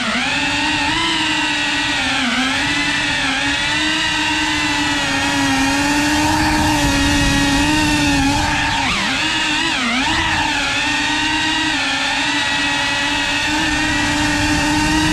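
FPV quadcopter's electric motors and propellers whining steadily, the pitch dipping and climbing again with throttle changes a couple of seconds in and twice around nine to ten seconds in.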